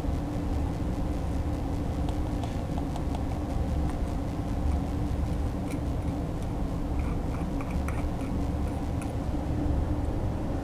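A steady low hum of lab equipment, with faint scraping and light ticks from a small scoop taking conductive mounting powder and tipping it into a metallurgical mounting press's mould.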